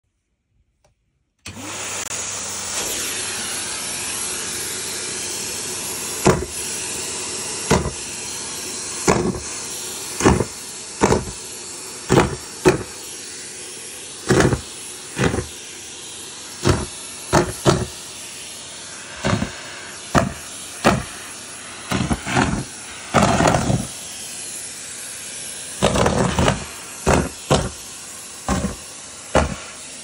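Numatic Hetty cylinder vacuum cleaner switched on about a second and a half in, settling into a steady hiss of suction. From about six seconds in, deflated latex balloons are sucked up the metal wand one after another, each a short loud burst, over twenty in all, coming faster near the end.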